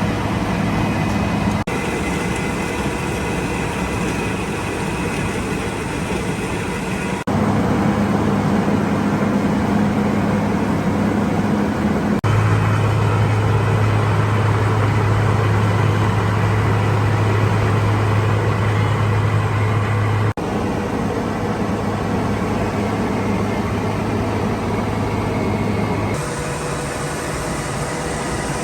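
Heavy asphalt milling and paving machinery running steadily: a dense engine hum with a low steady drone. The sound changes abruptly several times, as the footage cuts between machines.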